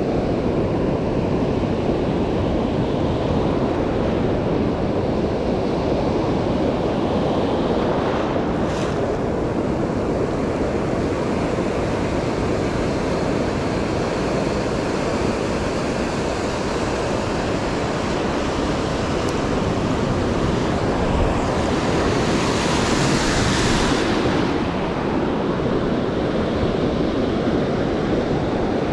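Ocean surf washing in the shallows at the shoreline, with wind buffeting the microphone; one wash of surf comes in louder and hissier about three-quarters of the way through.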